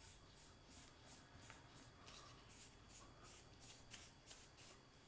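Faint, rhythmic rubbing strokes, about three a second with a short pause near the middle, as a small wooden piece is worked by hand against an aluminium tube; they stop just before the end.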